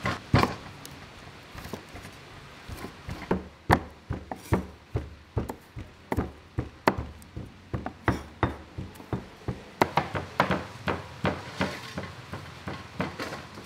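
Knife chopping bell pepper on a wooden cutting board, mixed with a pestle pounding in a stone mortar: repeated sharp knocks, about two a second, sparser in the first few seconds.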